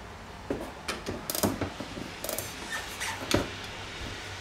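Scattered metallic clicks and knocks of hand tools and shock-mount hardware as an old shock absorber is unbolted from a truck's front suspension.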